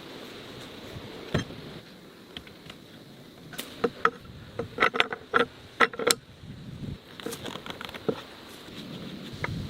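A scatter of short clicks and light knocks from tools and building materials being handled, bunched together about four to six seconds in, some with a brief metallic ring. Under them is a faint steady high insect buzz.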